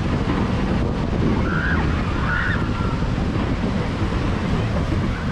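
Wind buffeting the ride camera's microphone in a steady, loud rumble as a free-fall tower gondola climbs, with two brief higher-pitched sounds about one and a half and two and a half seconds in.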